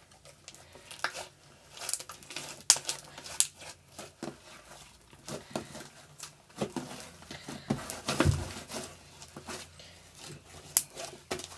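Slime being stirred with a fork as instant snow is mixed in, making irregular crackling and clicking.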